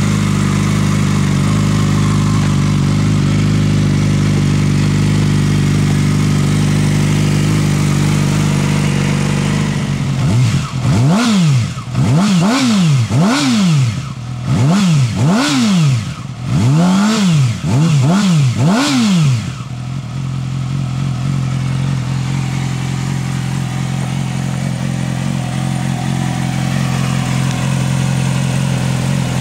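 Yamaha YZF-R6 inline-four engine with a GYTR slip-on exhaust idling steadily. About a third of the way in it is revved in about eight quick blips, each rising and falling in pitch, then it settles back to idle.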